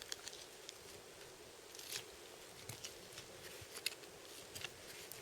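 A hunting knife, a Bark River Bravo1, cutting meat on a deer carcass: faint, scattered clicks and short slicing scrapes.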